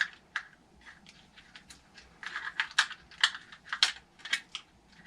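Irregular light clicks and taps of hand tools and small metal parts being handled on an RC truck's chassis during engine installation, coming thicker after about two seconds.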